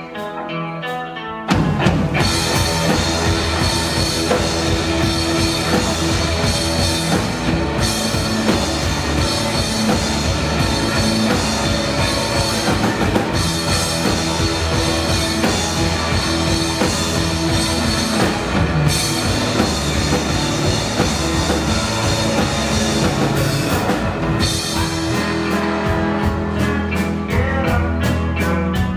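Live rock band playing a song: a quieter opening, then about one and a half seconds in the full band comes in loud with drum kit and guitars, and keeps playing steadily.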